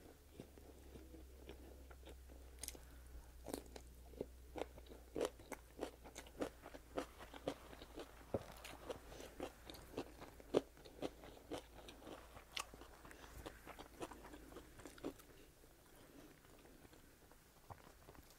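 Close-miked chewing of food, with moist clicks and light crunches about two a second, thinning out near the end.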